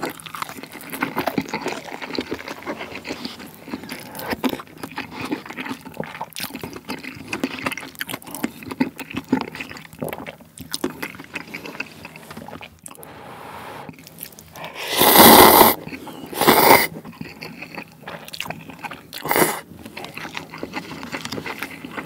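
A person eating close to the microphone, with steady wet chewing and lip smacking. Three loud slurps come about two-thirds of the way through.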